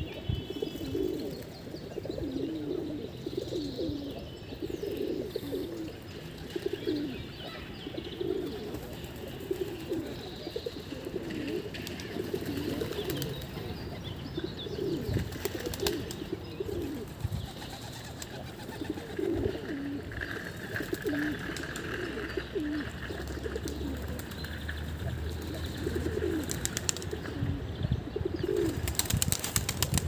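A flock of feral pigeons cooing, overlapping low burbling coos repeating about once a second.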